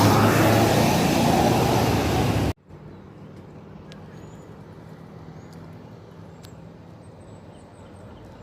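A tour bus passing close by with its engine running, then the sound cuts off abruptly about two and a half seconds in. After that, a quiet background with a few short high chirps.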